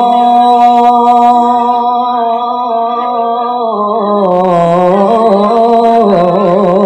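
A man's solo Quran recitation (qiroah), sung into a microphone: one long melismatic note held on the closing word 'Allah' of the verse. It holds steady, then about four seconds in steps down in pitch and quavers in small ornamental turns.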